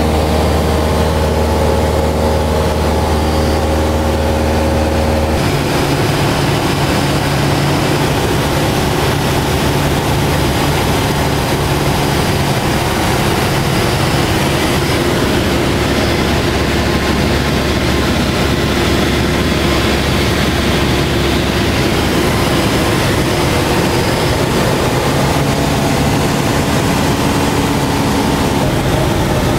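Cessna 172's piston engine and propeller running steadily in flight, heard from inside the cabin. The pitch of the drone shifts abruptly about five seconds in.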